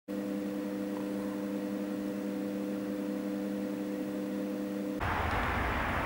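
A steady hum made of a few held tones. About five seconds in it stops abruptly and gives way to a louder, even rush of outdoor noise.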